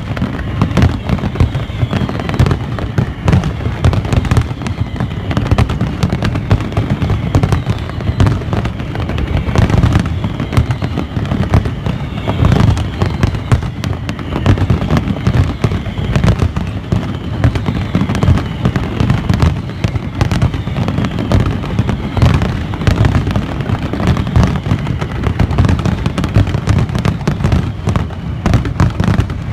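Fireworks display: a dense, continuous barrage of aerial shell bursts, one bang after another with no pause.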